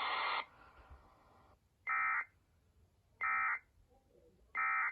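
Emergency Alert System end-of-message signal: three identical short, buzzy bursts of digital data tones, evenly spaced about 1.3 seconds apart, marking the end of the alert. Before them, a stretch of broadcast hiss cuts off about half a second in.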